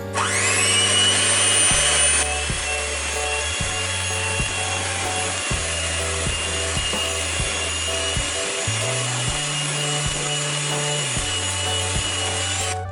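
Electric mixer beating cupcake batter. Its motor spins up with a quickly rising whine, runs at a steady high whine, and stops suddenly at the end.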